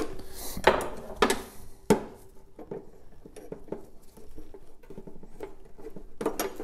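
Small scraping clicks and rustles of a metal tool and gloved hands working a rubber fuel line off a lawn mower carburetor. The sharpest clicks come in the first two seconds, with quieter scratching after and a few more clicks near the end.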